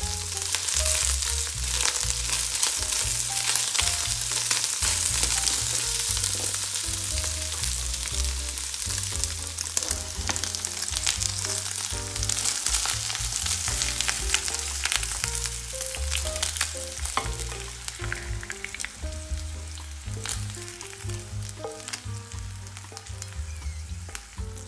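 Diced chicken frying in oil in a nonstick pan: a loud, steady sizzle, with a spatula scraping and clicking against the pan as the pieces are stirred, and the sizzle easing in the last few seconds. Background music with a bass beat plays underneath.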